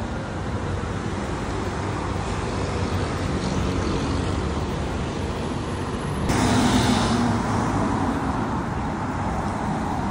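Steady road traffic noise from cars passing along a city street, becoming suddenly louder about six seconds in.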